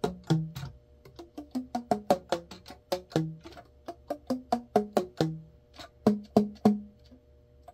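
Yamaha YAS-62 alto saxophone keys slapped shut by the fingers without blowing: runs of quick, hollow, pitched pops, about four a second, stepping down and up in pitch as different pads close on their tone holes. It is a pad-pop check of the freshly overhauled instrument's pad seal.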